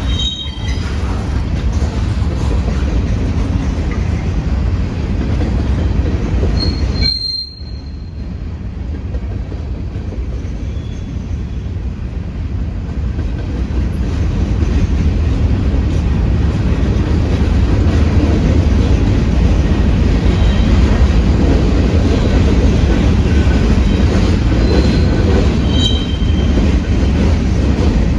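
Freight train cars rolling past with a steady heavy rumble, with short high-pitched wheel squeals now and then, one clear one about seven seconds in.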